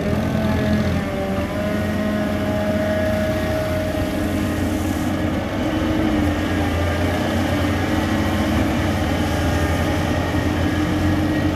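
Caterpillar hydraulic excavator's diesel engine running steadily under load as it lifts a full bucket out of the pond and swings the boom, with a whine that slides up and down in pitch over the engine.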